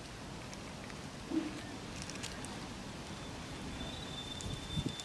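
Quiet outdoor ambience with a few faint clicks and taps and a short dull thump about a second and a half in. A thin, steady high-pitched tone sets in near the end.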